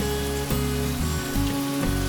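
Background music with sustained, changing notes over a steady sizzling hiss of food frying in a pan.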